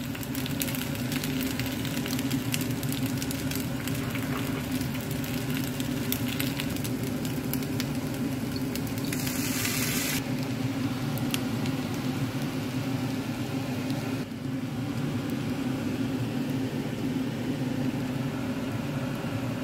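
Fried rice with spinach and peas sizzling in a nonstick frying pan as it is stir-fried, with short scrapes and clicks of the spatula against the pan, mostly in the first half, and a brief louder hiss about nine seconds in. A steady low hum runs underneath.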